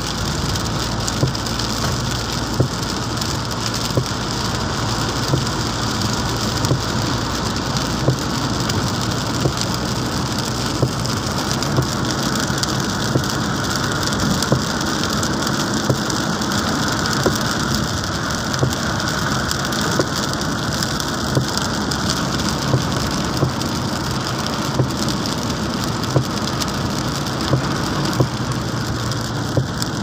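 Heavy rain hitting a car's roof and windshield, heard from inside the moving car, with scattered sharp drop impacts over the hiss of tyres on the wet road and a steady low engine hum.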